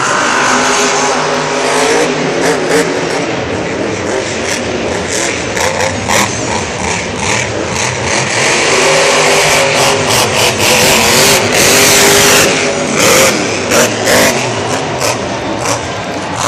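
Monster truck engines running and revving, their pitch rising and falling, with the loudest run of sharp revs about ten to thirteen seconds in.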